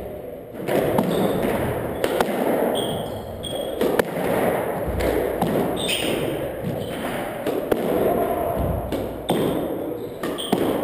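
Squash rally: the ball struck by rackets and hitting the walls every second or two, with short squeaks from shoes on the wooden court floor.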